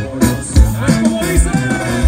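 Live band music over a loud outdoor PA: a steady beat with the kick drum hitting about twice a second, under guitar and voice.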